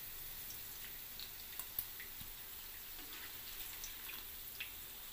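Hot oil in a kadai sizzling faintly, with a few scattered small crackles and ticks, after a batch of potatoes has been fried golden.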